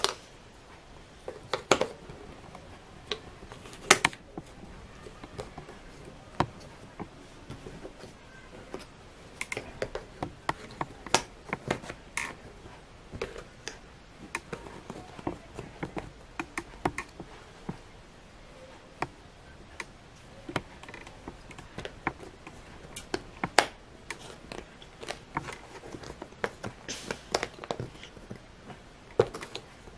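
Wooden jigsaw puzzle pieces clicking and tapping against each other and the wooden puzzle tray as they are handled and fitted in. Irregular light clicks, with a few sharper knocks.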